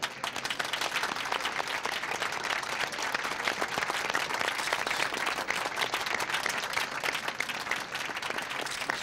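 A crowd of guests applauding steadily: many hands clapping at once.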